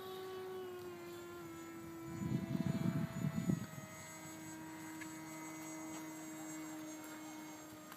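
Propeller airplane droning overhead, a steady hum whose pitch slowly falls as it passes. A louder choppy noise, likely wind or handling on the microphone, breaks in about two seconds in and lasts over a second.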